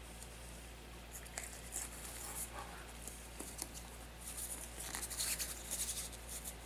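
Faint scratching and rustling of hands digging and pressing damp terrarium substrate, with scattered small clicks, getting busier toward the end.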